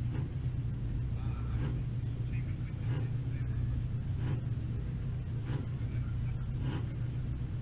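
Banger racing car's engine idling steadily, heard from inside its stripped-out cabin, with a brief swell in the sound about every second and a half.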